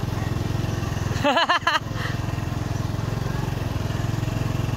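The single-cylinder diesel engine of a công nông farm truck running steadily with an even beat. About a second and a half in, a brief loud wavering sound rises over it for about half a second.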